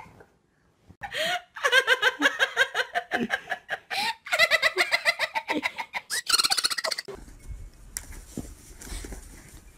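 High-pitched giggling laughter in two long stretches, each a fast run of short pulses, the first starting about a second in and the second just after four seconds. Near the end it gives way to a low wind rumble on the microphone.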